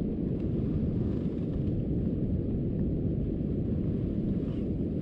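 Steady low rumble of wind buffeting the microphone and surf breaking on the beach, with no distinct events.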